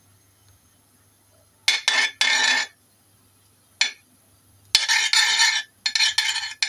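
A metal spoon scraping and clinking against a metal wok while ghee is put into the heating pan: a few short strokes, then longer scraping near the end.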